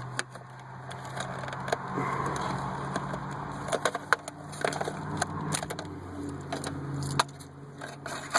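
Plastic dash trim clicking, creaking and snapping as it is worked loose from its friction-fit clips, with many irregular sharp clicks over a steady low hum.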